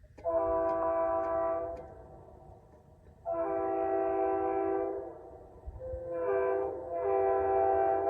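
Multi-chime railroad air horn sounding a chord of several steady notes in the grade-crossing pattern: long, long, short, long, with the last blast still going at the end.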